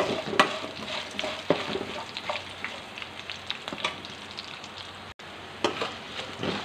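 Ghee tempering of cashews, green chillies, black pepper and cumin sizzling in a metal kadai, stirred with a metal spoon that clicks and scrapes against the pan. The sound cuts out for an instant a little past five seconds.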